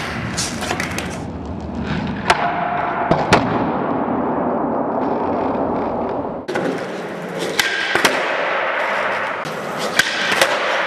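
Skateboard wheels rolling on smooth concrete with a steady rumble, broken by about five sharp clacks of the tail popping and the board landing during backside flip attempts.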